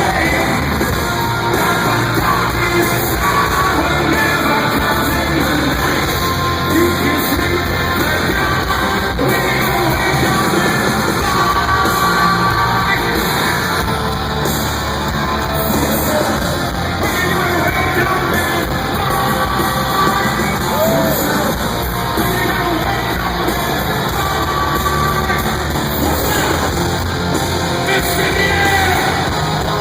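Live rock band playing loud through an arena sound system, with a singer's sung and yelled vocals over the band, echoing in a large hall.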